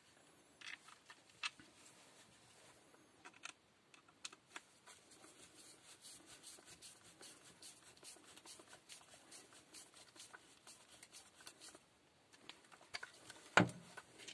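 Faint hand-tightening of housing screws into a cordless drill's plastic case with a screwdriver: a run of fast fine clicks for several seconds, with scattered handling taps and one louder knock near the end.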